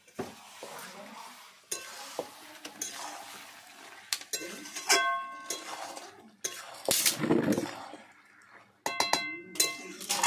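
A metal spatula stirs and scrapes chicken around a steel kadai while the meat is fried down in oil (kosha). It clinks against the pan, and a few strikes ring on, about halfway through and again near the end.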